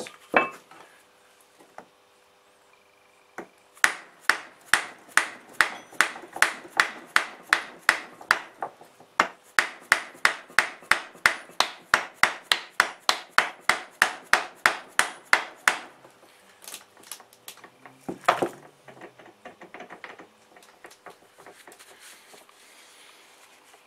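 Soft-faced mallet tapping on a Nissan Patrol TX12a transfer case, driving the rear bearing in the last few millimetres. It is a run of sharp, even taps, about three a second, that starts a few seconds in and stops after about twelve seconds, with a short pause midway and one more knock a couple of seconds later.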